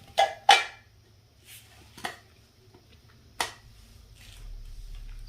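A few sharp clicks and clacks of toy tea-set pieces being handled, the loudest about half a second in and quieter ones near two and three and a half seconds.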